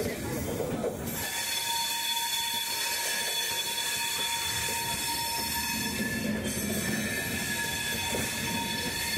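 Indian Railways passenger coaches rolling past close by as the train pulls into the station. A steady rumble carries a held high-pitched squeal of several tones.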